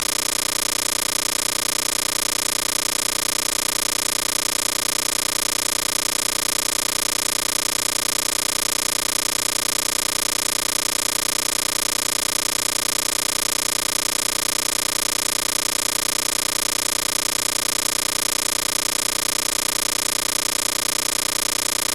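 A steady, unchanging noise, a hiss with a hum under it, spread from low to very high pitch and holding the same level throughout.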